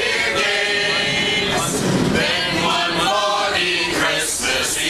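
A group of passengers singing a Christmas carol together in unison inside a streetcar, mixed men's and women's voices.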